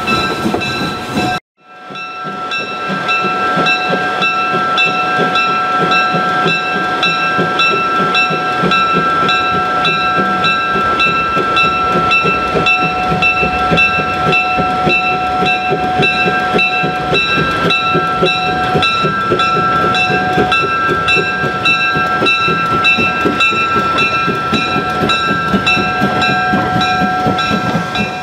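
Steam train crossing a bridge, running steadily with a constant high-pitched ringing of several tones held over the rumble. The sound cuts out briefly about a second in, then carries on unbroken.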